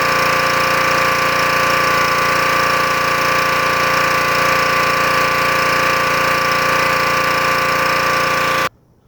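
Gas engine of a Troy-Bilt 3500 PSI pressure washer running steadily while a 15-inch surface cleaner sprays the asphalt, with a steady hiss over the engine note. It cuts off suddenly near the end.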